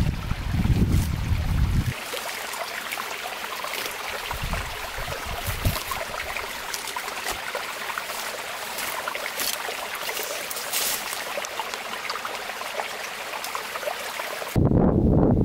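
A steady, crackling hiss. Low wind rumble on the microphone fills the first two seconds and comes back about a second before the end.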